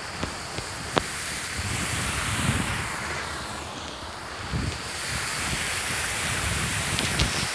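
Wind buffeting a moving camera's microphone during a run: a steady rushing noise that swells and dips, with a few sharp ticks.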